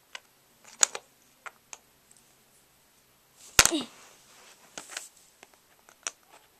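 Lego bricks clicking as they are pressed together and set down on a plastic bin lid: scattered sharp clicks, with one louder knock about three and a half seconds in.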